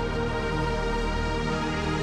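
Electronic background music with sustained, held synth tones.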